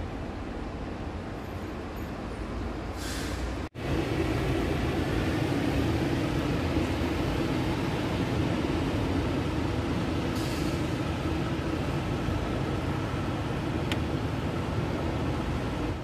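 Steady city ambience of distant traffic: a continuous rumble with a low steady hum. The sound cuts out for an instant a little under four seconds in and comes back louder.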